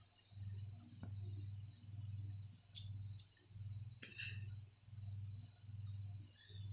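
A faint low hum that swells and fades about once every three quarters of a second, over a steady high-pitched hiss, with a few faint clicks.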